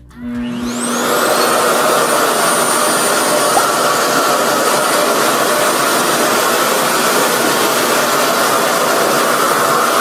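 RevAir reverse-air hair dryer switched on. Its suction motor spins up with a rising whine over the first second, then runs loud and steady on the cool setting while drawing the hair bundle up into its wand.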